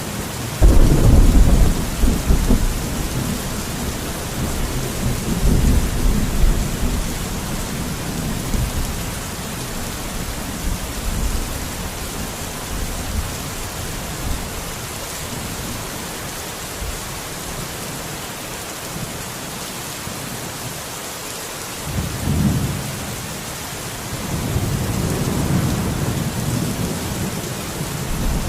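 Steady rain falling, with rolls of thunder: a sudden loud crack and rumble about a second in, further rumbling a few seconds later, and more thunder rolling in near the end.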